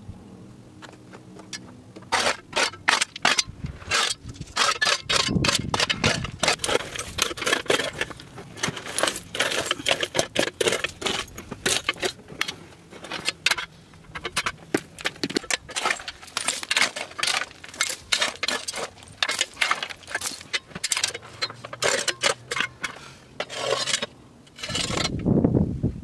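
Loose stones and rock chips clinking and scraping against one another in quick, irregular clatters as rocks are handled and shifted on a stony floor, starting about two seconds in.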